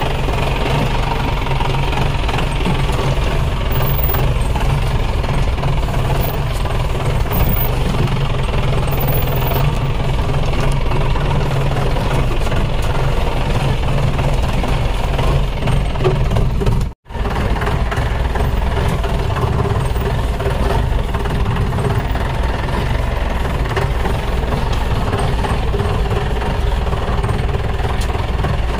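Off-road jeep's engine running steadily with a rough clatter as the jeep crawls over a rocky dirt track. The sound cuts out for a moment about halfway through.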